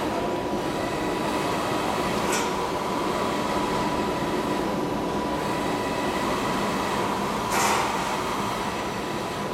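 Wide-format roll-to-roll inkjet printer running: a steady mechanical drone with a thin, high, even hum. A short hiss comes about two seconds in, and a louder one near the end.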